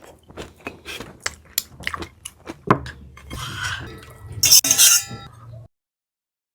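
Cutlery clinking and scraping against a plate or bowl during eating: many short sharp clicks, with a louder ringing clink about four and a half seconds in. The sound then cuts off suddenly.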